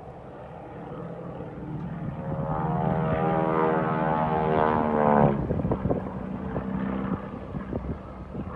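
Boeing Stearman biplane's radial engine and propeller overhead, the engine note rising in pitch and growing louder, then dropping away abruptly about five seconds in. Gusts of wind buffet the microphone after that.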